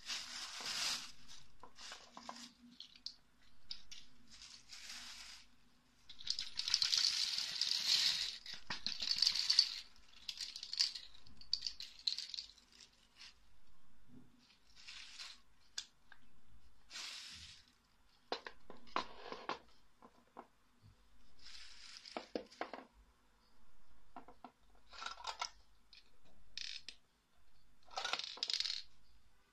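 Empty hard capsules rattling and skittering across a clear acrylic 100-hole capsule-filler tray as it is shaken to drop them into the holes, in bursts of a second or two, the longest and loudest about six to ten seconds in. Shorter rattles and light clicks of the acrylic plates follow.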